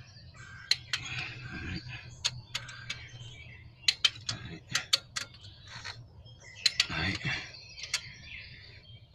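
Ratchet torque wrench tightening cylinder head bolts on a Mercedes C230 engine, giving irregular sharp metallic clicks, some in quick pairs.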